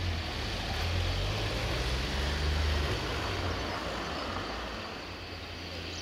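Low rumble of a distant vehicle engine that swells to a peak about halfway through and then fades, over a steady outdoor hiss.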